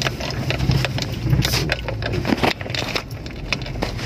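A vehicle's engine running steadily while driving slowly over a rough road, heard from inside the cabin, with frequent clicks, knocks and rattles as the vehicle bounces.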